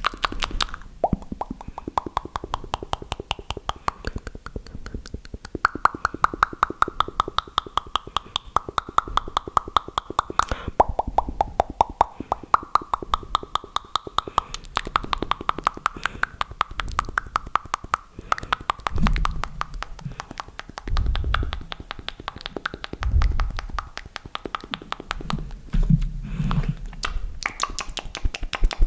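Fast, aggressive ASMR mouth sounds close to the microphone: a rapid stream of tongue clicks and pops, many per second. Several low thudding bursts come in during the second half.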